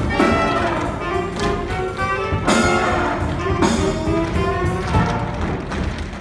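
A live stage band with brass playing an upbeat dance number, with sharp percussive hits falling on the beat.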